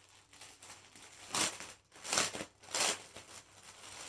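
Clear plastic packaging crinkling as a baby garment is handled and drawn out of it, in three loud rustles: about a second and a half in, just past two seconds, and again shortly after.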